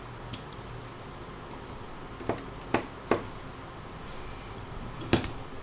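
Tiny Phillips screwdriver taking small screws out of a smartphone's back frame: four sharp, light clicks and taps from about two seconds in, over a faint steady hum.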